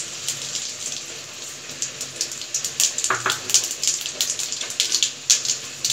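Mustard seeds and urad dal sizzling in hot oil in a stainless-steel kadai, with short sharp crackles that come more often from about halfway through.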